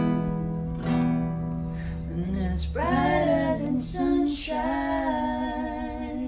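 A woman singing slow, held notes over a strummed acoustic guitar.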